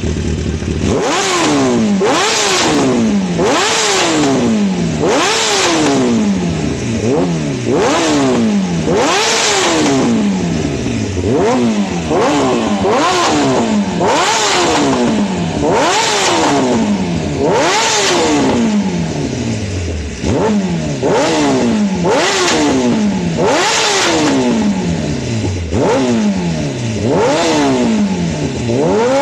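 Kawasaki ZX-10R inline four-cylinder sportbike engine, breathing through a loud Two Brothers aftermarket exhaust, being blipped over and over while standing still: each rev snaps up sharply and falls away, about once every one to two seconds. Crackling and popping backfires come from the exhaust as each rev drops.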